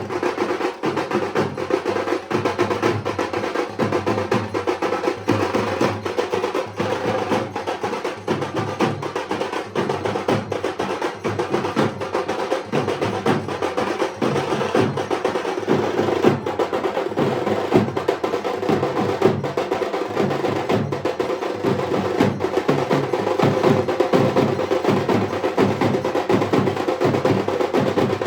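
Dhak, the Bengali barrel drum, beaten with sticks in a fast, unbroken rhythm.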